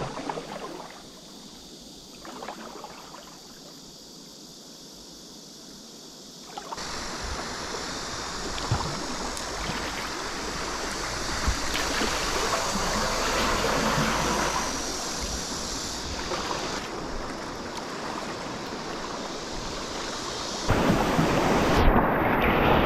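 River water rushing and splashing, with wind noise on the microphone; it is quieter at first and steps up abruptly about a third of the way in and again near the end, with a few brief splashes in between.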